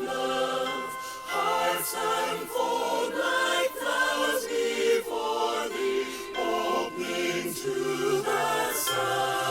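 A choir singing a Christmas worship song with instrumental accompaniment.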